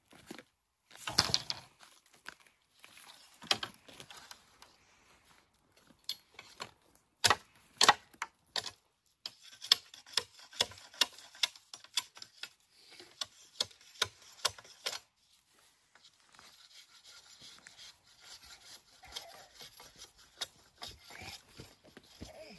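Machete blows on a bamboo pole: a couple of loud knocks, then a quick run of sharp strikes, about three a second, followed by softer scraping along the bamboo near the end.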